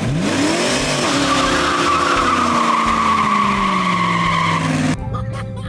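Foxbody Mustang's engine revved and neutral-dropped into a burnout: the revs jump up, then sag slowly under load while the tires squeal loudly for about five seconds, and the sound stops suddenly near the end.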